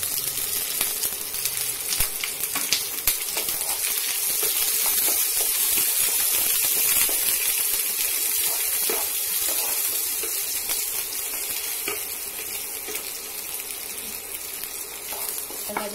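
Chopped onions and garlic sizzling in hot mustard oil in a kadai, with occasional taps and scrapes of a wooden spatula stirring them. The sizzle swells a few seconds in and eases toward the end.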